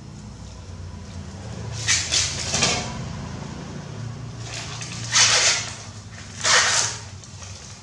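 Husks being torn by hand off ears of fresh corn: a few short rasping rips about two seconds in, then two louder ones at about five and six and a half seconds, over a low steady hum.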